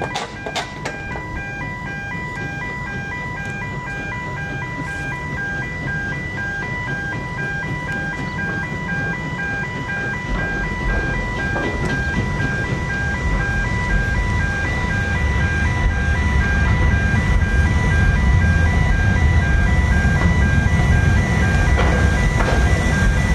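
A two-tone warning alarm sounding steadily, switching back and forth between two pitches. From about halfway in, a low rumble builds and grows louder.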